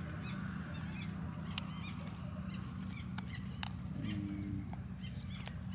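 Steady low rumble of wind and water, with faint high chirps repeating throughout and a few sharp clicks. A short low hum comes in about four seconds in.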